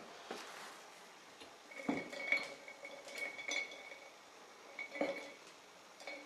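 A few clinks and knocks of small hard objects being handled on a worktable, coming about two, three and five seconds in, several ringing briefly at the same high pitch.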